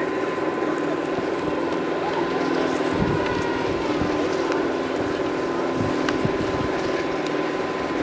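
Steady motor drone holding several constant low tones and one higher hum, with a few dull low thumps, one about three seconds in.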